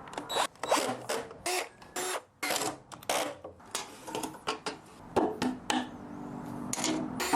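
A quick, irregular series of knocks and clatters from wooden 2x4 framing pieces and tools being handled and put together.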